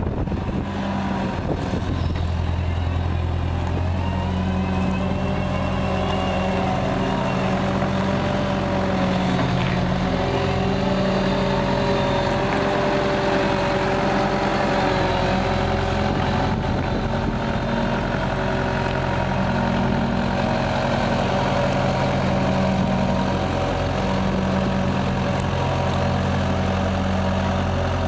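Komatsu PW110R wheeled excavator's diesel engine running steadily as the machine drives and turns, with a whine over the engine note that wavers a little in pitch.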